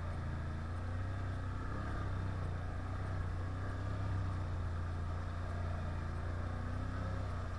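Can-Am 1000 quad's V-twin engine running at a steady, even speed, a constant low drone with no revving.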